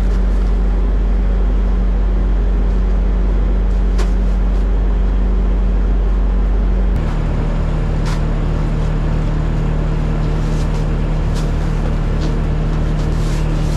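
An engine running steadily at a constant speed; about seven seconds in its note changes abruptly, dropping lower, as the speed or load changes.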